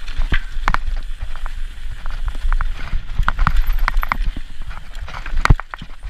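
Orange mountain bike clattering down rocky singletrack: tyres knocking over stones and roots, with chain and frame rattling in a quick irregular string of knocks, the hardest about five and a half seconds in, over a steady low rumble.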